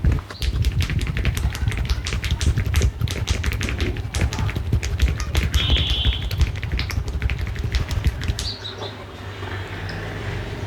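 Percussive massage strokes: hands rapidly tapping and slapping on the body, several sharp strikes a second with dull thuds beneath. The tapping stops about eight seconds in, leaving a low steady hum.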